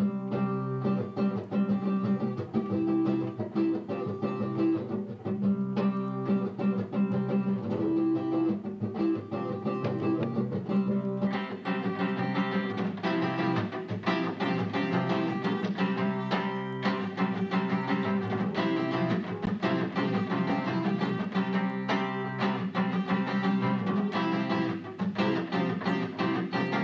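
Acoustic guitar being played in a steady run of chords, sounding fuller and brighter from about eleven seconds in.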